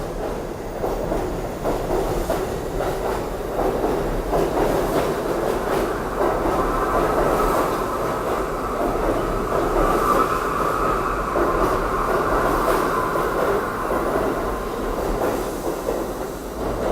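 New York City subway train moving through the station, its wheels clattering over the rail joints with a continuous rumble. A steady high whine comes in about six seconds in and fades near the end.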